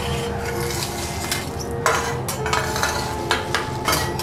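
Metal teppanyaki spatula scraping and clinking on a steel griddle as crumpled paper tissue is chopped and scooped up, with several sharp clinks in the second half over a steady hum.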